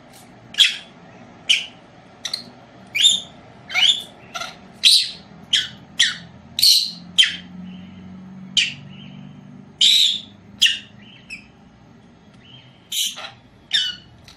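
Small pet parrot in a cage giving short, high-pitched chirping calls, about one or two a second, with a short pause near the end.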